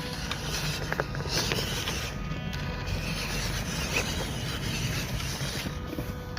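Small RC crawler's electric motor and gearbox whirring as the truck strains against a slope without making progress: it is stuck.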